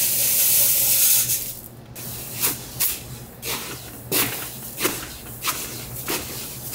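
Dry granules hissing as they pour for about a second and a half, then a series of short swishes, roughly one every two-thirds of a second, as they are shaken or scooped.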